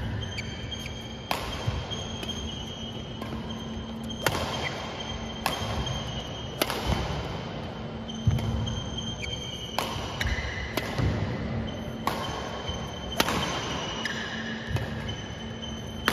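Badminton rackets striking a shuttlecock back and forth in a rally: sharp hits about every one to two seconds, each with a short echo.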